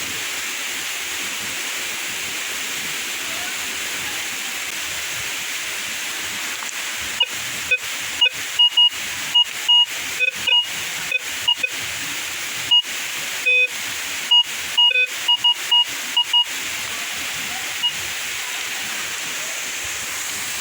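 Steady hiss of rushing waterfall water. About a third of the way in, a metal detector starts giving a quick string of short electronic beeps, some high and some lower, that runs for about ten seconds.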